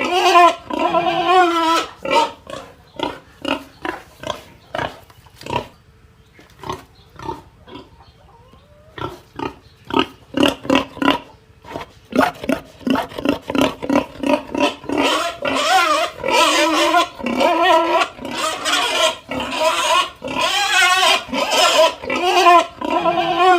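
Pig grunting in many short, quick calls, with long, loud, wavering squeals near the start and twice in the second half. The calls thin out for a few seconds about a quarter of the way through.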